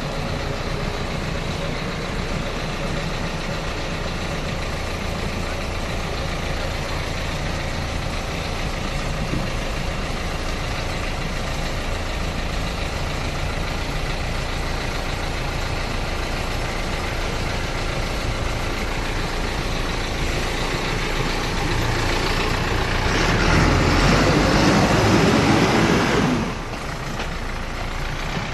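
Excavator diesel engine running steadily. About 22 seconds in it grows louder and harsher for some four seconds, then drops back suddenly to its steady running level.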